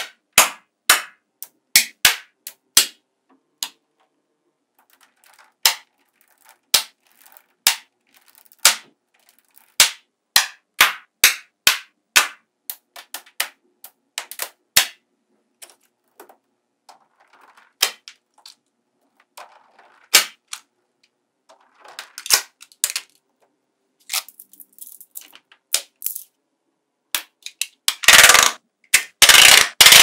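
Small magnetic balls clicking as they snap onto a panel of other magnetic balls: sharp, irregular single clicks, with softer scraping between them. Near the end comes a louder clatter of balls lasting a couple of seconds.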